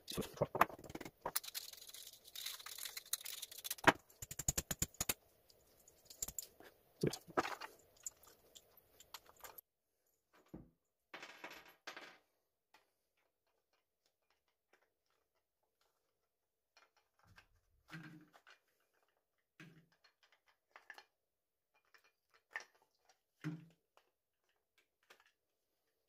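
Clicks, rattles and light knocks of small metal and plastic power-tool parts being handled on a wooden table: busy and continuous for about the first ten seconds, then only a few scattered knocks.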